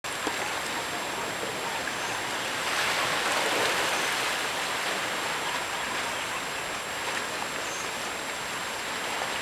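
Sea washing against the rocks below, a steady rush that swells a little about three seconds in.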